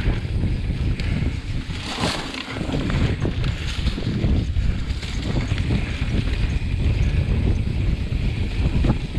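Wind buffeting the microphone, a dense low rumble with rushing noise on top and no clear engine note.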